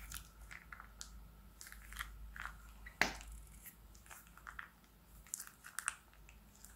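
Slime squeezed out of a plastic piping bag into a dish: irregular small wet crackles and pops, the sharpest about three seconds in.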